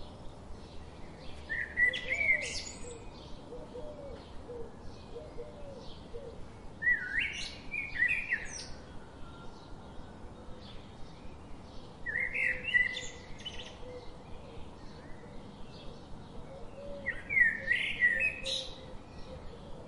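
A bird's chirping phrase repeated four times, about every five seconds, with quick gliding notes. A faint, even ticking runs two or three times a second between the phrases.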